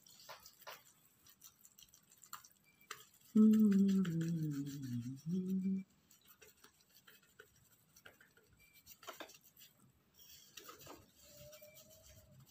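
A cloth rubbing and scraping over the skin as a dried face mask is wiped off, in faint scattered strokes. From about three and a half seconds in, a person hums one drawn-out note that falls in pitch for about two seconds.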